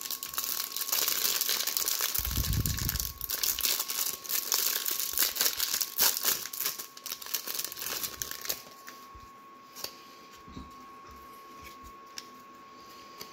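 Clear plastic wrapper crinkling and tearing as it is pulled off a stack of trading cards. About two-thirds of the way through it gives way to a few light clicks as the cards are handled.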